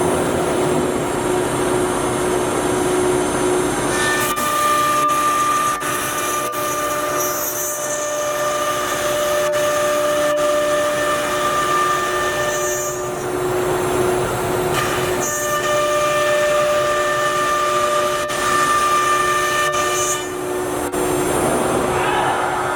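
CNC router spindle running and cutting, a steady whine of several held tones over a noisy cutting hiss. The tones change every few seconds as the load on the cutter shifts.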